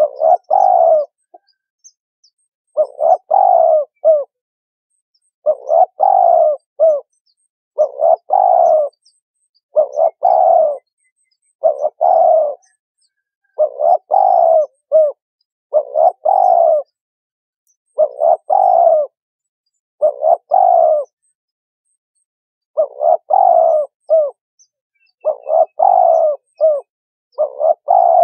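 Spotted doves cooing: a short phrase of several coos, repeated about every two seconds, with one longer pause a little past the middle.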